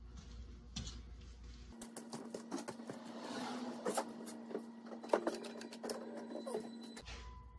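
Sped-up workshop sound: from about two seconds in, a quick, irregular run of clicks and knocks over a steady hum, ending abruptly about a second before the end.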